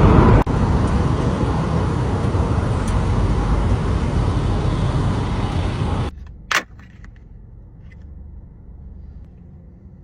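Steady car and traffic rumble that cuts off abruptly about six seconds in, followed by one short sharp sound and then a faint low hum.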